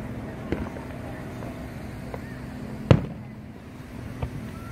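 Aerial firework shells bursting in the sky. There is a faint pop about half a second in, then one sharp, loud boom a little before three seconds, and a couple of fainter pops near the end.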